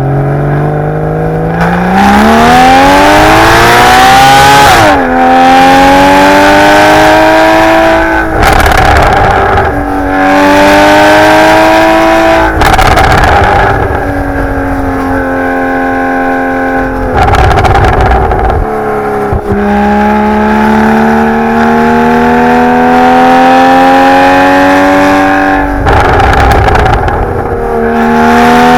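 Porsche 981 Boxster GTS's naturally aspirated 3.4-litre flat-six, through its stock sport exhaust in Sport Plus, revving hard up through the gears. The pitch climbs again and again and drops sharply at each quick upshift. Midway there is a stretch of steadier, slowly falling tone before it climbs again.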